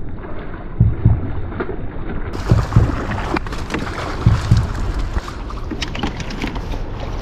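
Water splashing and sloshing as a hooked smallmouth bass thrashes at the surface beside a kayak and is scooped into a landing net. Repeated pairs of low thumps sound through it.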